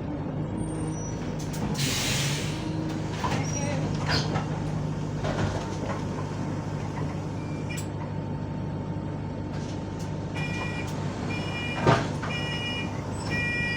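Bus engine idling at a stop. There is a short hiss of compressed air about two seconds in, then from about ten seconds in a repeating electronic beeping of the door warning, and a single thump near the end as the doors shut.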